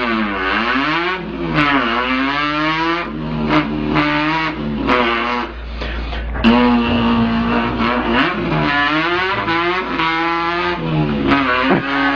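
A person imitating a car engine with the mouth, the pitch climbing as if revving through the gears and dropping back at each shift, several times over, with a steadier held note partway through.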